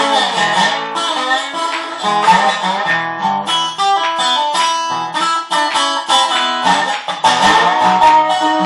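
Harley Benton resonator guitar (dobro) in open D tuning played bottleneck-slide style: picked blues notes, some gliding up and down in pitch under the slide, most plainly near the start and again near the end.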